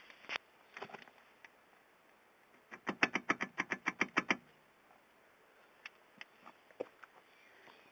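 Front drive shaft of a 1998 Subaru Legacy GT-B being shaken by hand, rattling out a quick run of sharp metal knocks, about seven a second for a second and a half, then a few single clicks. The knocking is the shaft's play, which the owner takes for a very loose front drive shaft.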